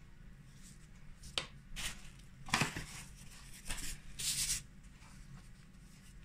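Metal spoon scraping and tapping pork filling onto a round of empanada dough on a plastic cutting board, with the handling noise of disposable plastic gloves: a few short scrapes and taps, and a brief rustle about four seconds in.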